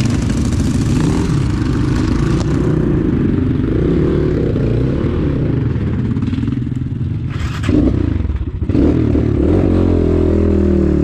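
Enduro motorcycle engine running under load while riding, its pitch rising and falling with the throttle. A short clattering knock comes about three-quarters of the way through, and the engine dips for a moment before pulling again.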